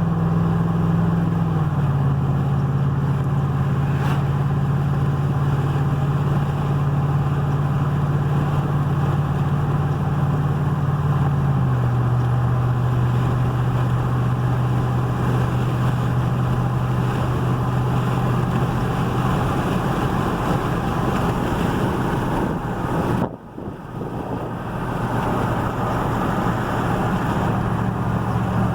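A vehicle driving, heard from inside the cab: a steady engine hum that drops in pitch in two steps, near the start and about twelve seconds in, under road and tyre noise that grows louder later. The sound cuts out for a moment about three-quarters of the way through.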